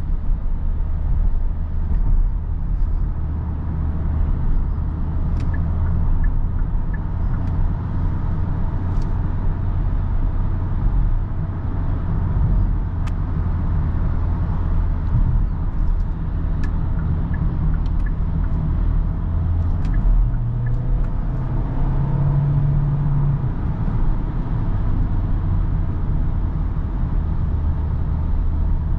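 Steady low drone of engine, tyre and road noise inside the cabin of a Kia Sorento hybrid with a 1.6-litre turbocharged four-cylinder petrol engine, cruising at motorway speed. The engine's tone shifts briefly a little past twenty seconds in.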